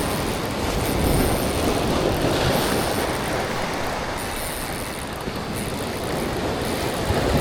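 A steady rush of wind and surf noise, with a low rumble.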